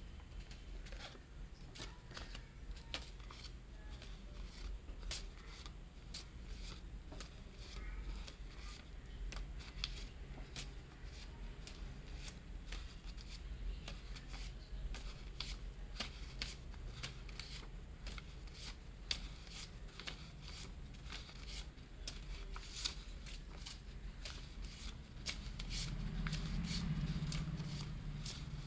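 Indian ₹500 paper banknotes dropping and rustling onto a cloth-covered surface: many light, irregular papery flicks and crinkles over a low steady hum.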